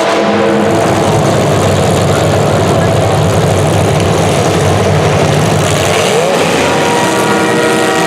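Racing vehicles' motors running hard, several at once, their pitch gliding up and down as they rev and lift over a constant noise of running.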